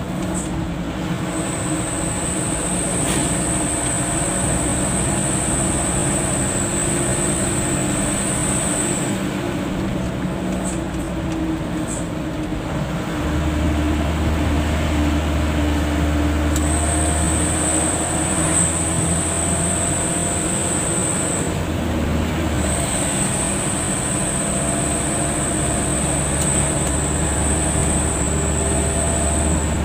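Car engine and road noise heard from inside the cabin while driving: a steady drone, with a deeper low hum coming in about a third of the way through, dropping out briefly and returning.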